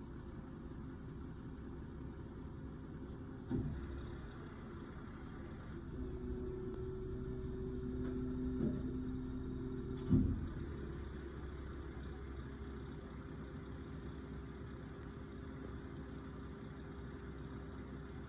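Automated side-loader garbage truck idling, its diesel engine running steadily. A knock comes about three and a half seconds in. From about six seconds a steady whine of the hydraulics rises over the engine for several seconds, with a clank partway and a loud bang as it stops. The engine then idles on.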